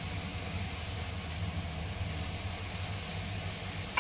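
Shrimp and vegetables sizzling in a frying pan, a steady soft hiss over a steady low hum.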